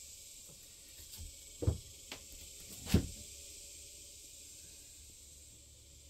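A few dull thumps over a steady hiss. The two loudest come about a second and a half in and about three seconds in.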